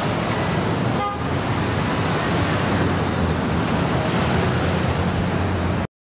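Steady road traffic noise from cars and motorbikes, dipping briefly about a second in and cutting off abruptly near the end.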